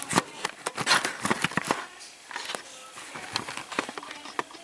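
Small objects being handled: irregular clicks, taps and light knocks, busiest in the first two seconds and sparser after.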